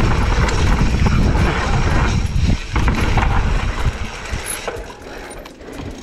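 Mountain bike descending a dirt trail: wind on the rider's camera microphone and tyres rumbling over the ground, with the rattle and clicks of the bike. About four seconds in it eases off as the bike slows, leaving the rear hub's freewheel ticking.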